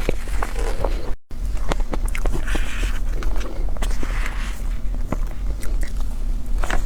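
Close-miked eating sounds: chewing with frequent small clicks and wet mouth sounds, over a low steady hum. The sound drops out briefly about a second in.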